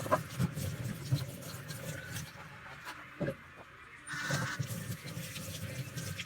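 Handling and wiping sounds while cleaning a refrigerator: rubbing, with scattered clicks and knocks of parts being moved and set down.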